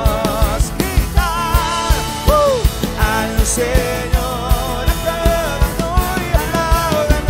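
Live worship band playing a song: a drum kit keeping a steady beat, an acoustic guitar, and a man and a woman singing into microphones.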